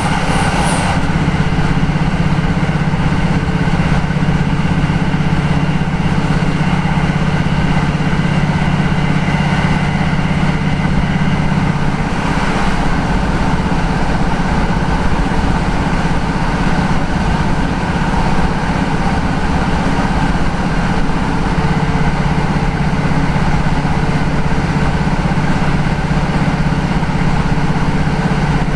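Cabin noise of a Class 156 Sprinter diesel multiple unit running at speed: the steady low drone of its underfloor Cummins diesel engine. The drone eases about twelve seconds in and strengthens again about twenty-two seconds in.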